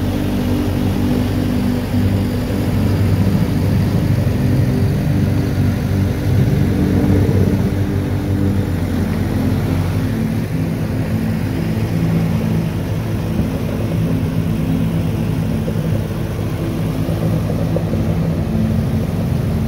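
Motorboat engine running steadily, a low drone that shifts slightly in pitch now and then.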